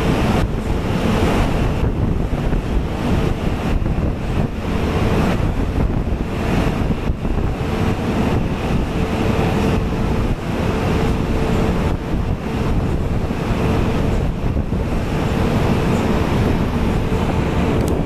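Rough storm seas surging and breaking against an offshore oil platform, with strong wind buffeting the microphone: a loud, continuous rushing roar that swells and eases.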